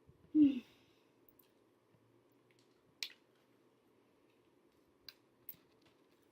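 A woman's sighed 'god' with a falling pitch, then quiet room tone broken by a sharp click about three seconds in and two fainter clicks near the end.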